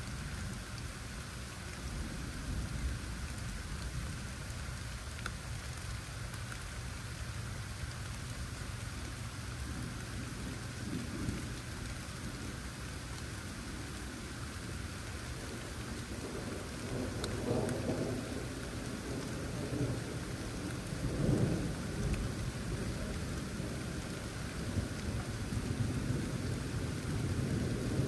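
Steady rain falling, with low rolling thunder rumbling several times through the second half, loudest a little past the middle.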